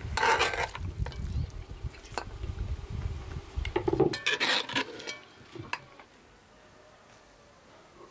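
Metal serving spoon scraping and clinking against a metal cooking pot as stew is spooned out, in two bursts: one at the start and one about four seconds in. Under the first part runs a low rumble that stops about four seconds in.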